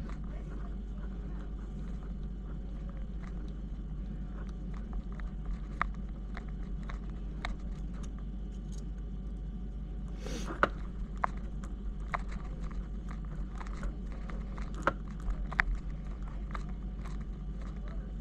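Scattered small clicks and taps of hands handling tiny screws and plastic parts while fastening an adapter plate to an RC crawler's skid, over a steady low hum. A short rustling scrape about ten seconds in.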